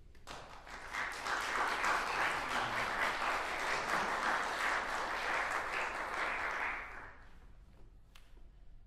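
Audience applauding: it rises about half a second in, holds steady for several seconds, then dies away about seven seconds in.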